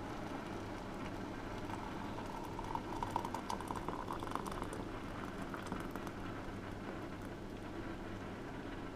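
Boiling water poured in a thin stream from a stainless steel electric kettle into a mug: a steady splashing trickle, loudest about two to five seconds in.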